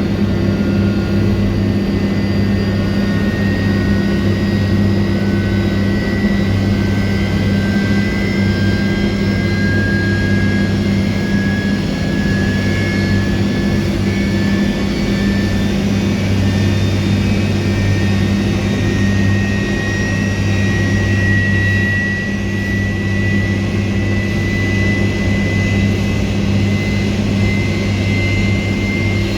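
Airbus A300-600 jet engines running during pushback: a steady low hum under a high whine that slowly rises in pitch.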